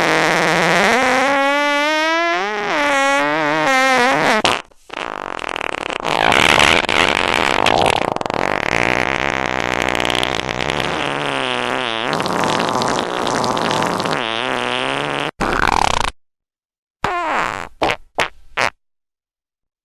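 Long fart sound effects played one after another. The first is a pitched, wobbling fart of about four and a half seconds. It is followed by a much longer, rougher one of about ten seconds, then, after a short pause, a few quick short sputters.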